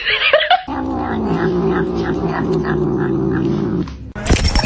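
A cat gives a short wavering cry, then a long, steady, low growl lasting about three seconds. Near the end comes a loud, sudden noisy burst.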